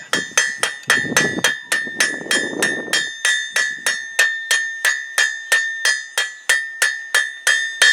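Blacksmith's hammer striking hot steel on an anvil in a steady rhythm of about three blows a second, each blow leaving a bright ring at one pitch. The square stock is being hammered round, turned between blows.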